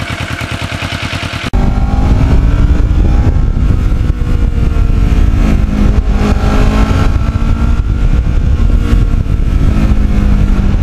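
Kawasaki Ninja 650R parallel-twin idling with an even exhaust beat. About a second and a half in, this gives way to the engine running on the road under wind rush, its pitch rising and falling with the throttle.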